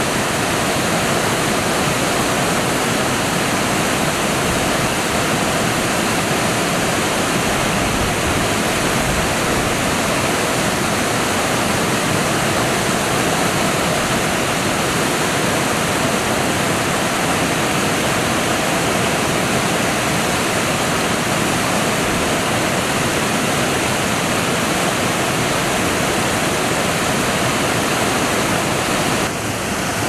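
Loud, steady rush of whitewater rapids: a continuous even roar of churning river water.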